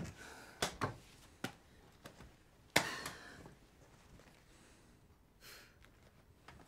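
A few soft knocks and rustles of people shifting in a small room. The loudest is a sharp noise with a short hissing tail about three seconds in.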